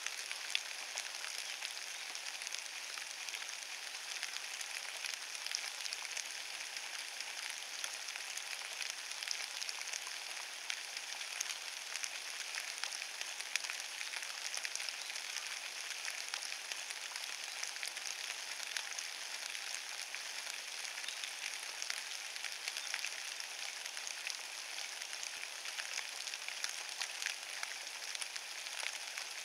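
Steady rain falling on a bed of wet fallen leaves: an even hiss made up of countless small drop ticks, unchanging throughout.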